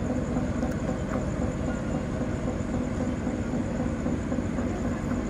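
Ship's engine running, a steady low drone with a constant hum.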